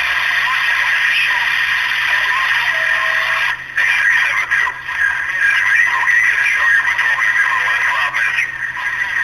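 CB radio reception: a distorted, narrow-band voice transmission that sounds tinny and garbled, with no words that can be made out. It drops out briefly about three and a half seconds in.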